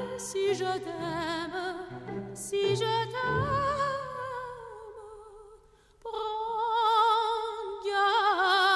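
Operatic singing with wide vibrato, played over hi-fi electrostatic loudspeakers and picked up by a microphone in the listening room. A held phrase fades away, and a new phrase starts about six seconds in.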